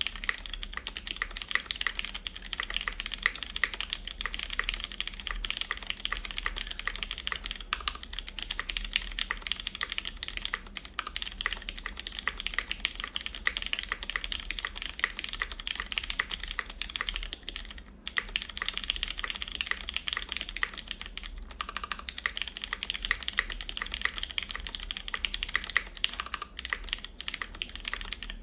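Continuous fast typing on a mechanical keyboard with lubed Cherry MX Brown tactile switches, a full aluminum plate and GMK keycaps, the board set in an o-ring mount: a dense stream of key clicks that pauses briefly about eighteen seconds in.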